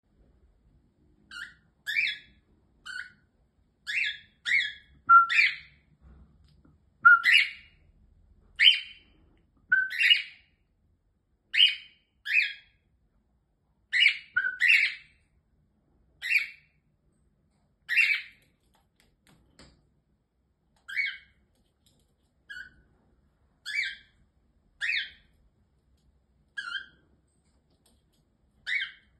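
Cockatiels calling: a long run of short, rising chirped whistles, often in quick pairs, about one call a second.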